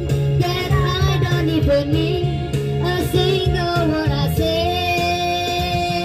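A voice singing a melody over a karaoke backing track.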